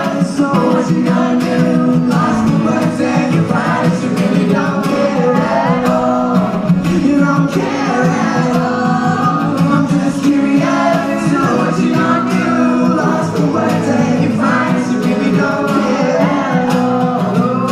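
Live pop band music with male singing, loud and continuous, played through a concert PA.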